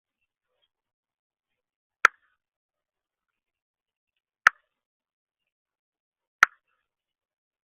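Three sharp single clicks, about two seconds apart, with dead silence between them.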